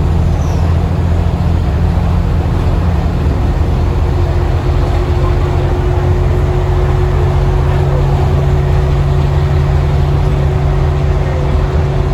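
Diesel engine and drivetrain of an Alexander Dennis Enviro 400 MMC double-decker bus with a Voith automatic gearbox, running steadily under way. About three seconds in the engine note steps up and a steady whine joins it.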